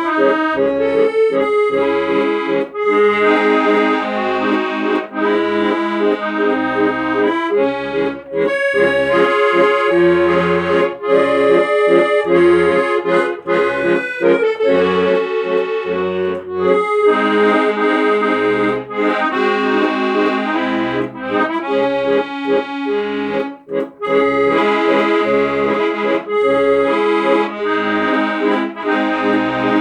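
Accordion music: a melody of sustained notes over short, regular bass notes.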